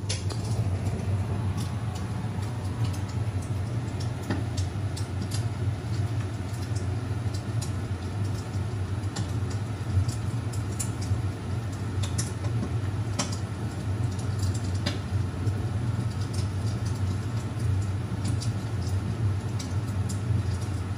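Fire crackling: a steady low rumble with irregular sharp crackles scattered through it.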